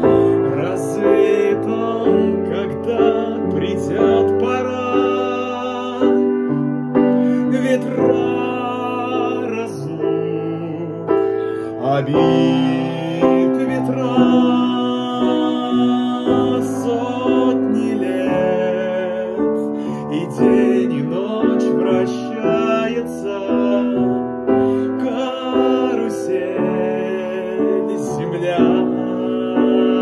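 Upright piano playing a slow, song accompaniment in held chords, with a man singing the melody along with it.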